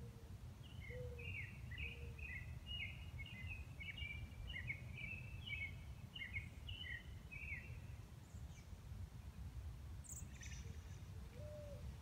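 A songbird sings a rapid, twittering run of short high chirps for about seven seconds. Under it, a dove gives slow low coos at the start and again near the end, the first coo of each group rising. A low steady rumble runs beneath it all.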